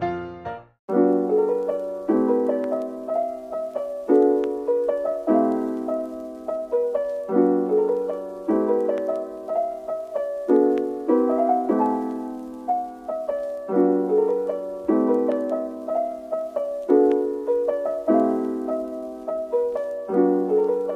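Background piano music. After a brief break, a new piece starts about a second in, with chords changing in a steady rhythm.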